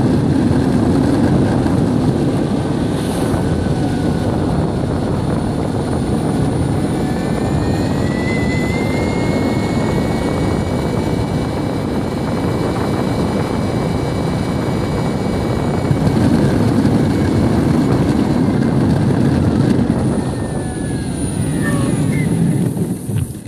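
Metroboard electric skateboard rolling fast over rough asphalt: a loud, steady rumble of the wheels with a thin electric motor whine that rises in pitch about eight seconds in and holds. Near the end the rumble eases and the whine falls as the board slows.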